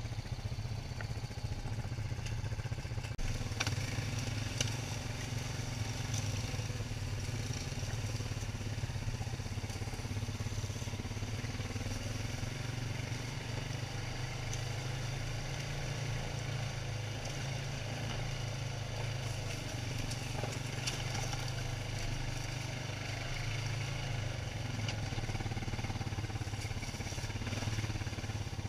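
An ATV engine running at a fairly steady speed as the quad rides along a dirt trail, with a few sharp knocks about three to five seconds in.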